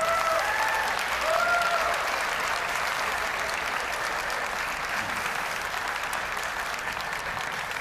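Audience applauding steadily, with a few short whooping cheers in the first couple of seconds.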